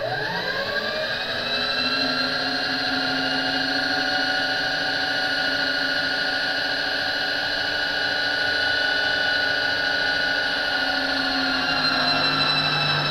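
Electric power-feed motor driving an RF-31 mill/drill's table along the X-axis: a steady motor whine that rises in pitch as it speeds up just after the start and falls as it slows near the end.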